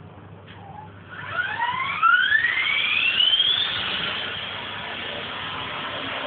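E-Sky King 2 electric RC helicopter's motor and rotor spinning up: a whine that rises steadily in pitch from about a second in, then settles into a steady high whir as the helicopter hovers.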